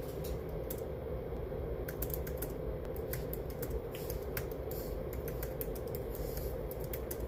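Irregular run of light clicks and taps, like typing on a keyboard, over a steady hum.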